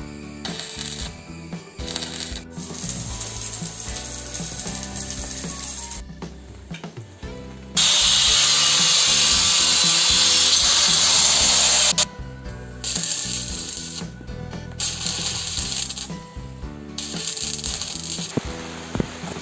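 Background music throughout. From about eight seconds in, for about four seconds, an angle grinder works on the steel frame with a loud, steady noise over the music, then stops abruptly.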